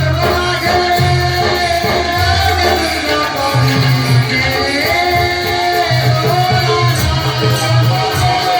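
Background music with a singing voice over a steady bass line.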